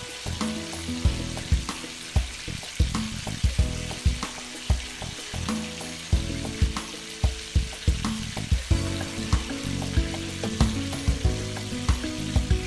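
Oil sizzling steadily as battered chicken drumsticks fry in a cast iron skillet, over background music with a steady beat about twice a second.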